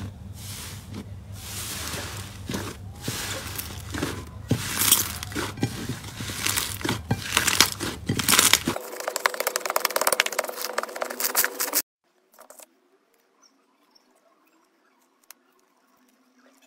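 Hands pressing and squishing slime in a bowl: many quick crackles and pops, thickest and loudest for a few seconds around the middle. Then it goes almost silent for the last five seconds, with only a few faint ticks as clear slime is stretched.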